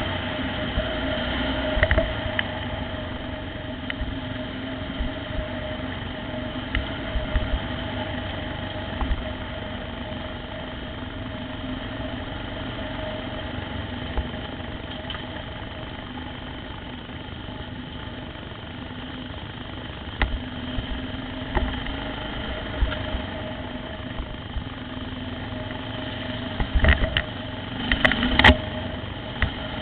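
Motorcycle engine running at a low, steady speed on a rough dirt trail, with scattered knocks and rattles from the bumps. A cluster of louder knocks comes near the end.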